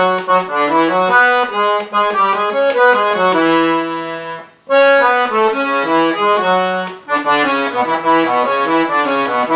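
Piano accordion playing a melody on its right-hand keyboard, note by note. The first phrase ends on a long held note about four seconds in, and after a short break a second phrase follows.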